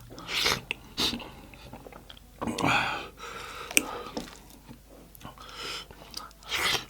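Close-miked chewing and mouth noises of a person eating goat-head curry with dhido, broken by a few louder short bursts and one sharp click a little before the middle.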